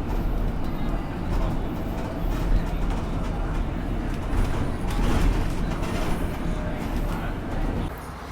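Steady low rumble of a moving vehicle with faint voices in the background; the rumble drops away shortly before the end.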